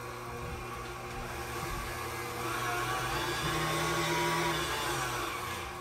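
SMEG retro stand mixer's electric motor running with nothing to mix, its speed turned up partway through so the hum rises in pitch and grows louder, then switched off at the end.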